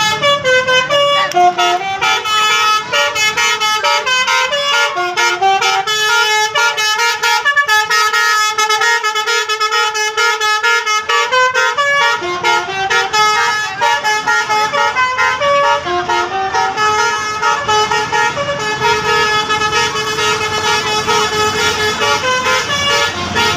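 A bus's telolet horn, a set of musical air horns, playing a tune of quick changing notes, with a few longer held notes about halfway through.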